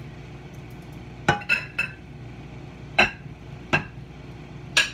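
Metal kitchen utensils and cookware clinking: a quick run of three sharp clinks, then three more single clinks spaced about a second apart, over a steady low hum.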